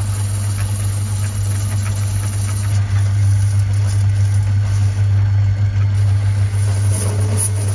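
Small metal lathe running with a steady motor hum while the tool turns a recess into a spinning brass bar between two flanges, to form a steam engine cylinder.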